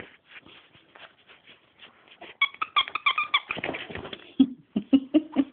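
Squeaker inside a dog's fabric treat toy squeaking several times in quick succession about halfway in, amid rustling and clicking as a small dog noses at the toy. A run of short low grunt-like sounds follows near the end.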